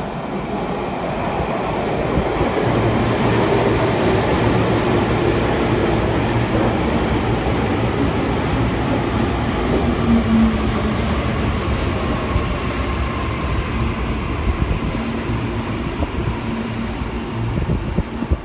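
Electric commuter train running alongside an enclosed underground platform: a steady rumble and rattle of steel wheels on rail that builds over the first couple of seconds, with a faint motor whine slowly falling in pitch in the second half.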